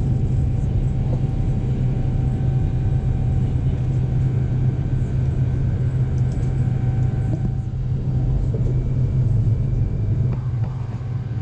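Steady low rumble of a Boeing 787-9 Dreamliner heard from inside the cabin during takeoff, with faint steady tones above the roar.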